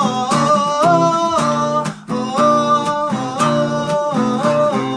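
Acoustic guitar strummed in a steady rhythm through a chord progression, with a brief break about two seconds in.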